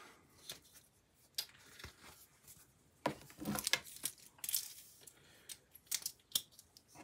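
Faint handling sounds of wristwatches: scattered light clicks of a metal bracelet and a watch case being picked up and set down on a wooden desktop, with a few brief rustles, busiest about three seconds in.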